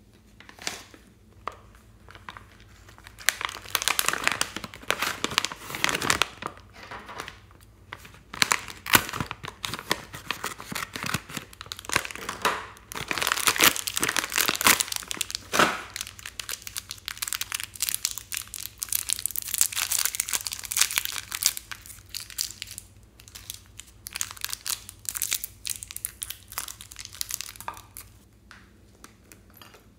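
Plastic snack packaging crinkling and tearing as it is opened by hand. The crackling comes in repeated bursts with short pauses and dies down near the end.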